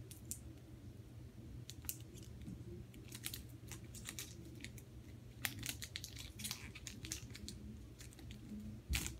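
Faint crinkling and crackling of a trading-card booster pack's wrapper as it is opened, with scattered light clicks of the cards being handled.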